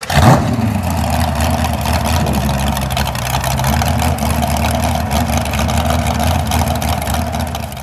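An engine running steadily with a deep, even rumble. It starts abruptly with a loud peak at the very beginning and begins to fade near the end.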